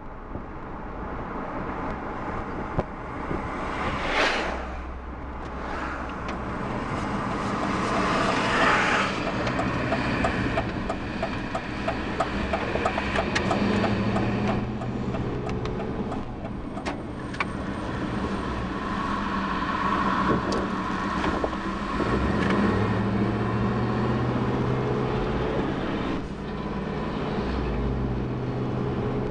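Ride noise from a camera duct-taped to a moving bicycle: continuous rolling noise with small rattles and clicks. Motor vehicles pass, swelling loudest about 4 and 9 seconds in.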